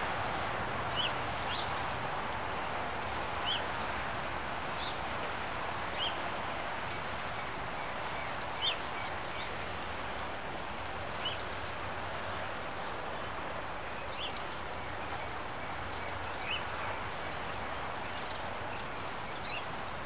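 Steady rain patter with a small bird chirping short single notes every second or two.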